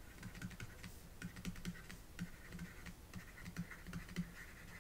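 Faint, irregular clicks and light scratches of a stylus writing by hand on a tablet surface.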